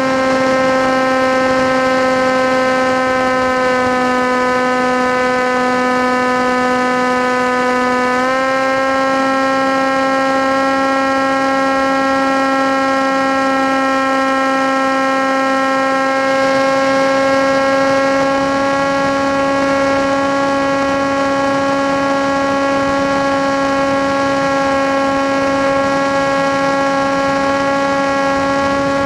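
FPV model aircraft's motor and propeller running steadily at cruise, a constant pitched hum that sags slightly about four seconds in and steps up a little about eight seconds in as the throttle changes.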